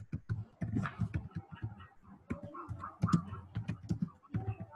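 Typing on a computer keyboard: an uneven run of key clicks, several a second.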